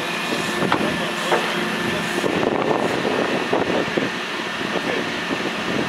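Komatsu forklift engine running steadily, with a couple of sharp knocks and a spell of clattering rattles in the middle as the forklift is maneuvered.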